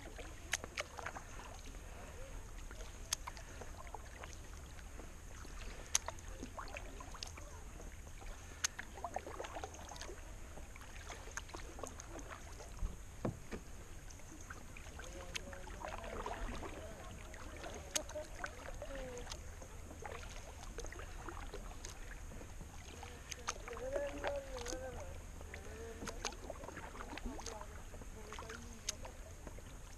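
Kayak paddle dipping and pulling through calm water, with scattered drips and small clicks of the paddle on the plastic sit-on-top kayak.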